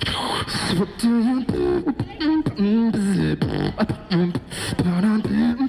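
Human beatboxing into a microphone through a small amplifier: quick clicks and hiss-like hi-hat strokes over a hummed pitched line that bends up and down.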